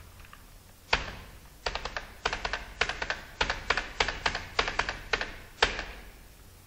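Computer keyboard keys struck in quick succession: a sharp keystroke about a second in, then a rapid run of clacking keystrokes, and one louder keystroke near the end, as data-entry fields are filled and the entry is accepted.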